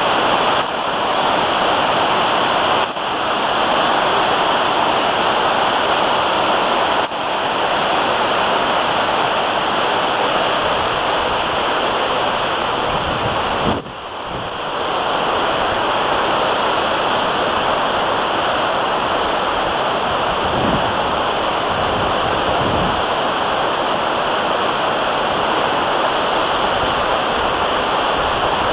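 Steady rushing of a cruise ship's churning wake water, with wind buffeting the microphone in low gusts about halfway through and again past two-thirds of the way.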